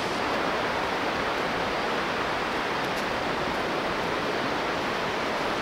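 Steady wash of surf breaking along a flat sandy beach, a continuous even hiss with no distinct single wave.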